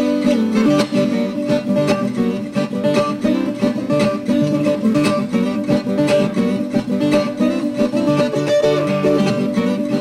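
Viola caipira, the Brazilian ten-string guitar, played solo as a ponteado: a picked melody of quick plucked notes running continuously over ringing strings.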